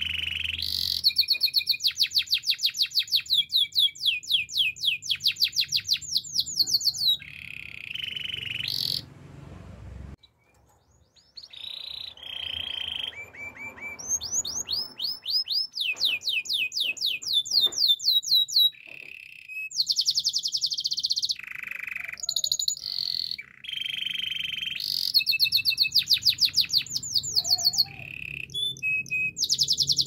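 Canary singing: long runs of fast, high trills and rolling repeated notes, broken by short pauses, with one longer silence about ten seconds in.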